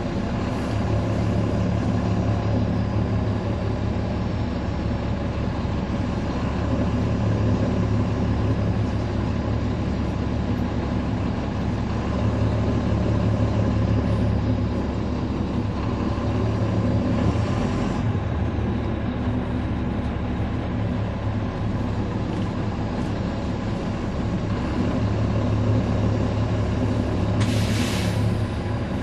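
On-board sound of a NABI 40-SFW transit bus's Caterpillar C13 inline-six diesel engine running as the bus drives, heard from inside the bus. The engine drone grows louder and softer by turns. A short hiss comes near the end.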